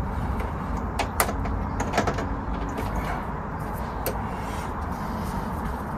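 A few sharp plastic clicks and light knocks from a wiring harness and its connectors being handled against a plastic car bumper, over a steady low background rumble.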